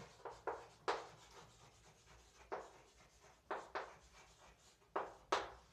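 Hand writing: about eight short scratchy strokes of a pen, marker or chalk in irregular groups, the sound of a worked solution being written out.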